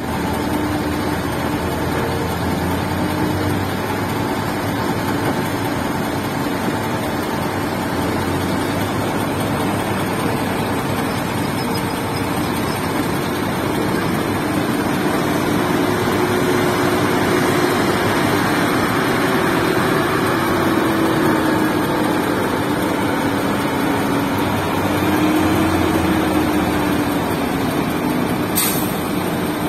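Doosan DX340LCA crawler excavator's diesel engine running steadily under hydraulic load as it digs and swings. Its pitch wavers up and down from about halfway through. A brief sharp click or clank comes near the end.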